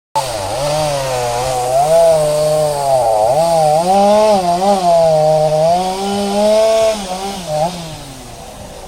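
An engine revving up and down unevenly, as if working under a changing load, then dropping back to a quieter idle near the end.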